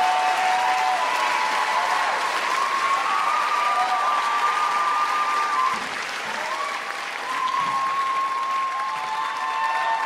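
Theatre audience applauding after a song, with long held cheers and screams over the clapping. It eases a little about six seconds in, then swells again.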